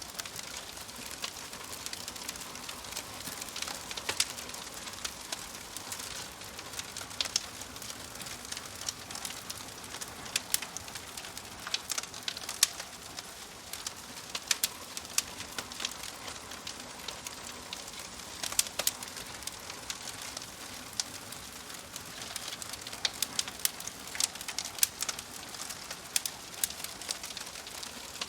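Wood fire crackling: irregular sharp pops and snaps, several a second, over a steady soft hiss, with a bird calling in the background.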